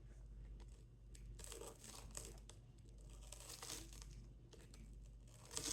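Knife cutting through buttered toast: a few faint, crunchy scraping strokes.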